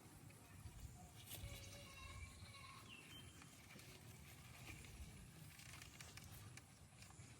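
Near silence: faint outdoor background noise with a low rumble and a few faint, brief high tones.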